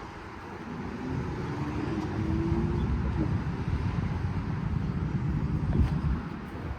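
Road traffic going by: a low steady rumble, with a faint rising engine note about two seconds in.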